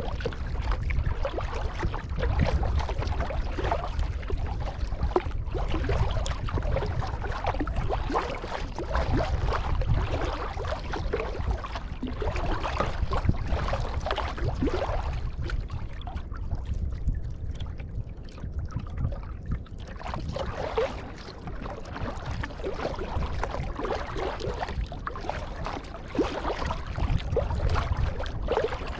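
Kayak paddle strokes splashing and dripping in seawater, irregular and ongoing, over a steady low rumble. The splashing thins out briefly about two-thirds of the way through, then resumes.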